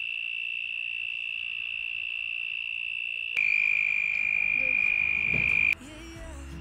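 A cricket's continuous high, steady trill. About three seconds in it becomes louder and slightly lower, then cuts off near the end as soft music comes in.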